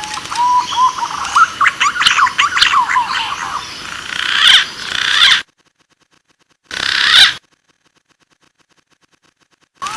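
Green pigeons (punai) calling: whistled notes gliding upward, then a run of fast chattering, warbling calls. About a second of silence follows, then one short burst of calls and a longer silence before the same call sequence starts over at the very end.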